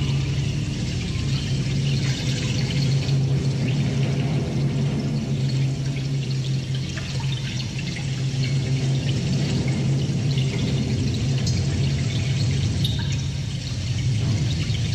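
Rough live concert sound: a steady low drone under a loud, hissing wash of noise.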